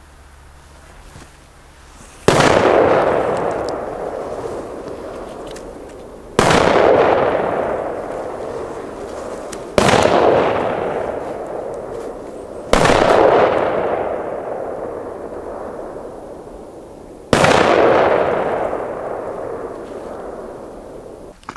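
Five firecrackers exploding one after another at uneven intervals. Each sharp bang is followed by a long rolling echo that dies away over several seconds.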